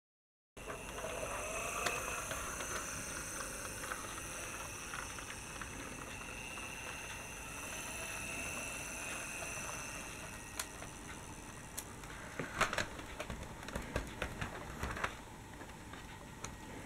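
Dickie Toys City Liner toy tram moving along a wooden toy track: a steady hiss with faint high tones, then a quick cluster of clicks and knocks about three quarters of the way through.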